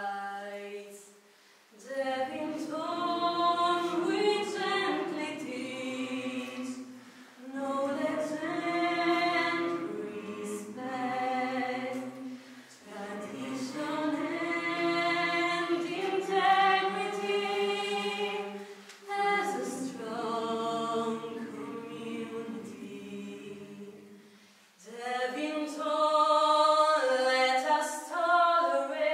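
A small mixed choir singing a hymn a cappella, led by a female solo voice, in sung phrases of about five seconds separated by short breaks for breath.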